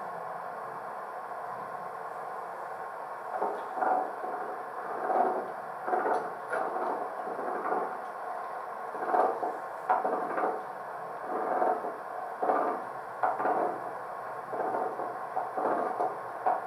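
Sound of a London Underground 1938 tube stock train from a DCC sound chip: a steady hum, then from about three seconds in a long run of irregular knocks and clunks, often in close pairs.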